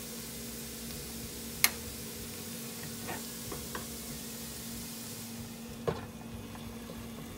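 Soft sizzling of potatoes and beans in a frying pan, fading out near the end, with light knocks of a wooden spatula on the pan and a glass bowl. A sharp knock comes about a second and a half in, a few light clicks around three to four seconds, and another sharp knock near six seconds as a glass lid is set on the pan. A steady low hum runs underneath.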